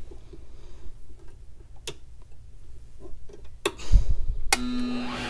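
A few sharp clicks and a low knock from handling the key in an HPC Blitz key code cutting machine. Near the end the machine's cutter motor switches on and runs with a steady hum, as the key is cut deeper where the impression marked.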